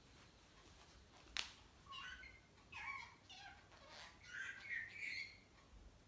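Budgerigar chattering: a run of short chirps and warbling calls, with a single sharp click about a second and a half in.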